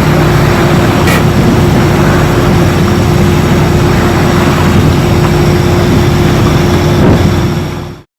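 Boat engine running steadily and loud, with a constant hum and a rough low drone; it fades out just before the end.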